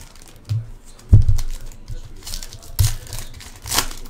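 Foil trading-card packs (Panini Prizm football hobby packs) being torn open and crinkled by hand, in several short rips and crackles. A dull thump comes about a second in.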